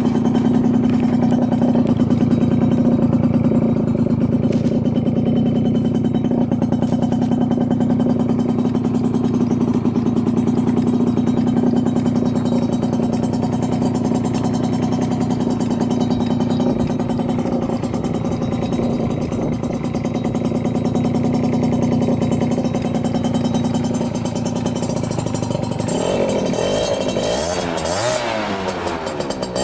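Yamaha Champ RS 50 cc two-stroke scooter engine with a long expansion-chamber exhaust, running at a steady speed, then revved up and down several times near the end. It runs with no unusual noises.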